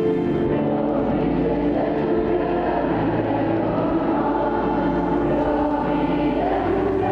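Slow background music of long held chords, with choir-like voices.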